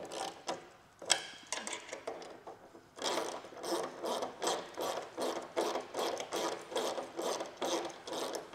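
Ratcheting 10 mm socket wrench clicking as it tightens the nylock nuts on the wing mounts, in evenly repeated strokes. There is one sharper click about a second in and a sparser stretch before the steady strokes start about three seconds in.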